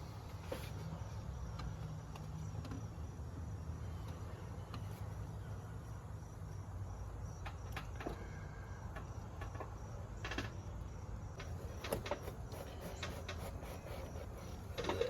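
Low steady hum with a faint, evenly pulsing high chirping, as of an insect. Scattered light clicks and knocks of parts and tools being handled come in, most of them in the second half.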